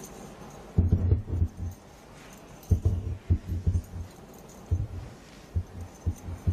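Low, dull thumps from a film soundtrack, some single and some in short clusters, coming unevenly about every second or so.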